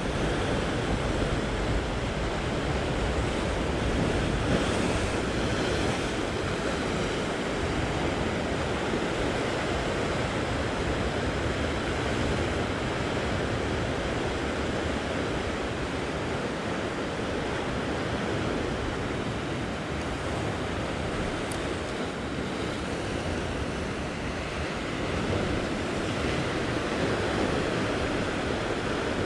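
Ocean surf washing against the rocks below, a steady rushing noise that swells a little near the end, with wind buffeting the microphone.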